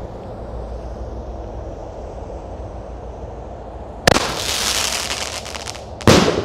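30 mm Pirastar firework shot going off: a sharp launch bang about four seconds in, then nearly two seconds of dense crackling, and a second loud bang about six seconds in as the shell bursts. Before the launch there is only a low steady outdoor rumble.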